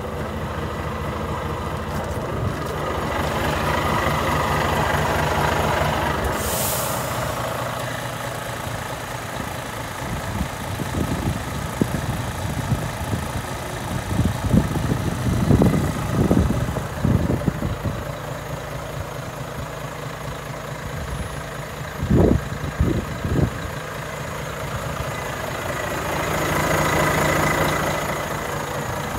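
Volvo FH4 500 tractor unit's 13-litre straight-six diesel idling steadily, with a short sharp hiss of released air about seven seconds in and a few low thumps in the second half.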